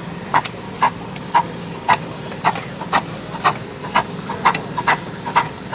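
1.5-inch-scale Little Engines ALCO Northern (4-8-4) live steam locomotive under way. Its exhaust chuffs evenly at about two beats a second, with a light steam hiss between beats.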